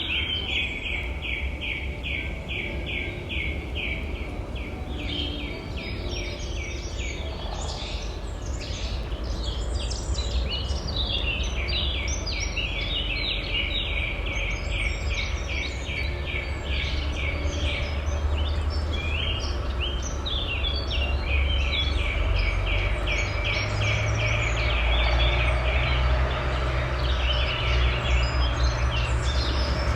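Countryside ambience: birds singing in the trees, one repeating a fast series of chirps at about five a second, with other birds calling over it. Under them runs a low rumble that grows louder in the last third.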